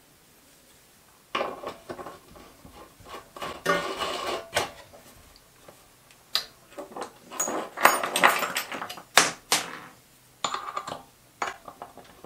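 Metal parts clinking, knocking and scraping as a homemade ER11 collet chuck is fitted onto a micro lathe's spindle. A sharp knock about a second in, then irregular clinks and rattles, busiest near the middle and again later on.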